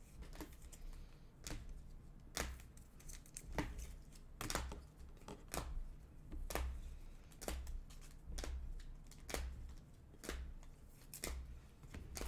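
Trading cards being handled on a table: short taps, slides and rustles of card stock, roughly one a second.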